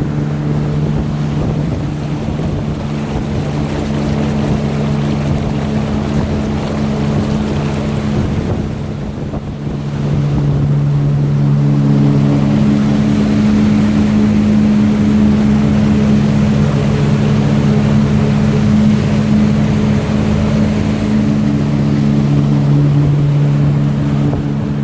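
Heyday WT2 wake boat's inboard engine droning steadily at wakesurf speed, about 11 mph, with wind and water rushing past the hull. Its pitch shifts slightly a few times.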